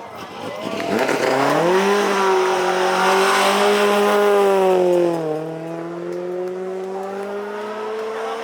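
A rally car's engine revving up and held at high revs with tyre squeal, its pitch dipping about five seconds in and then climbing slowly again.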